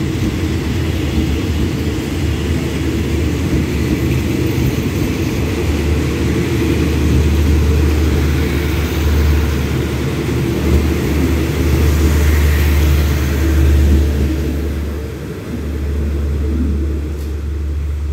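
Diesel-hauled passenger train pulling out of the station, its carriages rolling past with a steady low rumble. The rumble swells through the middle and eases off about fifteen seconds in.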